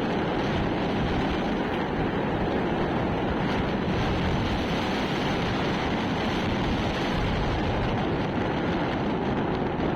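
Wind noise on the microphone: a steady, unbroken rush with no distinct engine note or separate sounds.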